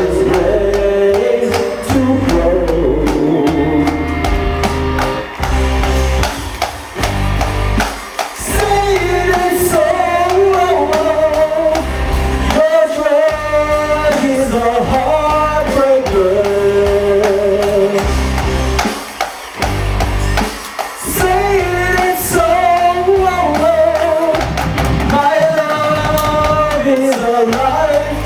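A band playing a song: a drum kit, a pulsing bass line and a wavering held melody line over it.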